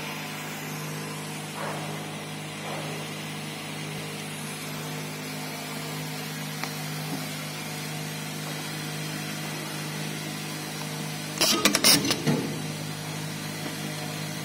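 Steady hum of a semi-automatic nylon cable-tie machine and its vibratory bowl feeder running. About 11 seconds in, a loud clattering burst lasting about a second as the tying head shoots a nylon tie around a motor stator's windings, pulls it tight and cuts it.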